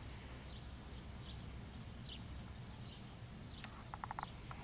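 Quiet outdoor ambience: a faint low rumble with scattered small bird chirps, and a quick run of five short chirps about four seconds in.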